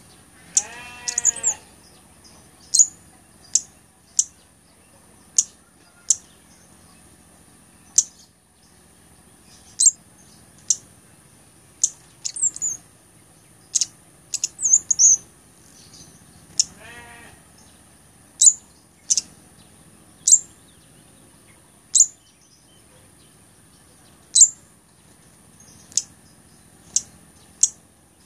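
A blood-breasted flowerpecker (cabai gunung) gives short, sharp, high-pitched call notes every second or so, some in quick twittering runs. Twice, near the start and a little past halfway, a lower wavering bleat-like animal call is heard. A faint steady high whine runs underneath.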